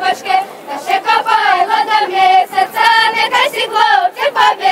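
A group of girls and young women singing a Ukrainian folk song together, their high voices holding and sliding between long notes.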